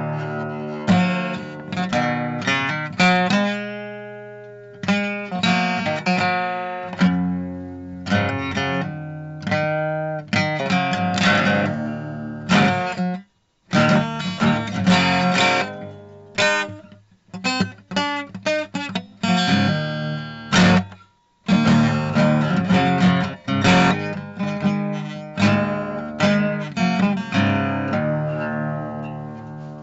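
Acoustic guitar music, plucked and strummed notes and chords that ring and fade, with two brief breaks about a third and two thirds of the way through.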